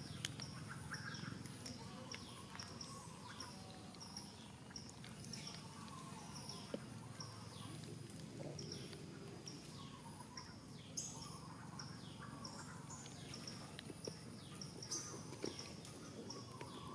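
A high, short chirp repeated evenly about twice a second, each note falling in pitch, over faint outdoor background noise.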